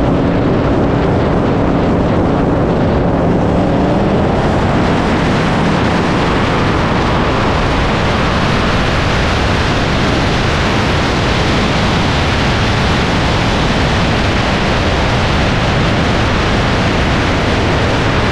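Loud, steady wind rush on a car-mounted action camera's microphone at highway racing speed, with a car engine's drone heard under it for the first few seconds before the wind noise covers it.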